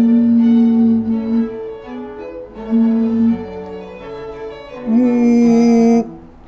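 Bowed string music playing slow, long held notes in a few phrases, with short pauses between them.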